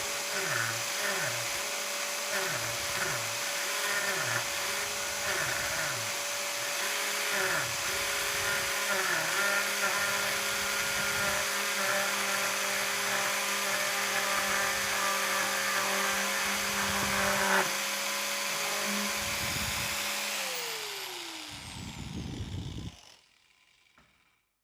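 Angle grinder fitted with a paper disc, running at speed and cutting into a piece of wood, its pitch dipping again and again as the disc bites. It is switched off about twenty seconds in and winds down to silence.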